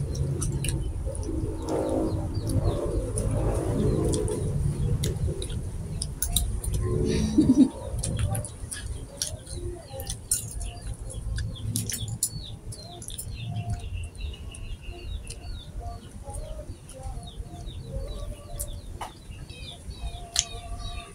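Birds calling in the background, with short high chirps that come thicker in the second half. Forks click against plates and a bowl throughout.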